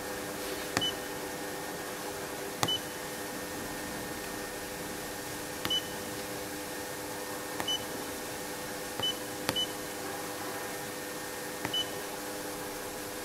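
Touchscreen control panel of an FPM inkjet printer beeping at each button press: a short high beep with a click every second or two, about eight in all. A steady low hum runs underneath.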